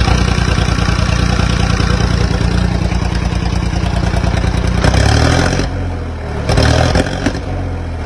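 1981 David Brown 885 tractor's three-cylinder diesel engine running steadily, revved up briefly twice past the middle.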